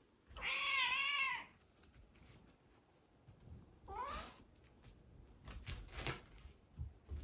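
Domestic cat meowing: one long meow of about a second with a wavering pitch, then a shorter rising sound about four seconds in, and a few soft taps near the end.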